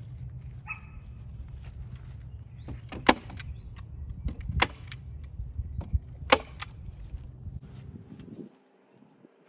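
Hand staple gun firing, three sharp snaps about a second and a half apart, as bird netting is stapled down, with faint rustling over a steady low rumble that drops away near the end.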